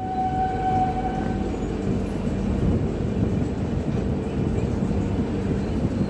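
Express passenger train running along the line with a steady rumble, and a faint high tone in the first second and a half.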